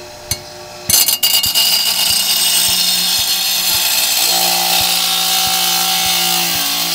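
Half-horsepower bench grinder sharpening a steel mower blade: a loud, steady grinding hiss starts about a second in, as the blade is pressed to the wheel, and stops abruptly near the end.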